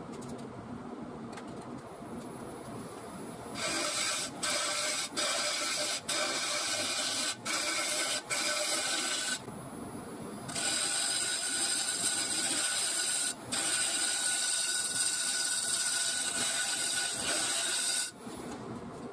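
Wood lathe spinning a mulberry bowl while a turning tool cuts its inside, a loud hissing scrape. The cutting comes in two long stretches, from about three and a half seconds in and again after a short pause near ten seconds, broken by a few brief lifts of the tool. It stops near the end, leaving the lathe's steady running.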